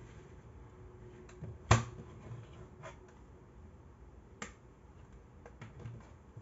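Plastic CD jewel case snapping shut with one sharp, loud click a little under two seconds in, followed by a few softer plastic clicks and taps as the case is handled and put down.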